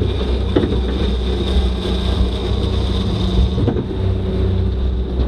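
Motorboat engine running steadily, a constant low hum with a steady high-pitched whine over it.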